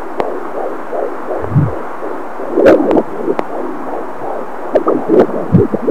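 Angel Sounds handheld fetal doppler picking up a fetal heartbeat at 18 weeks' gestation: quick, even whooshing pulses, about two to three a second, over a steady hiss. A few louder thumps and clicks break in, the loudest about halfway through.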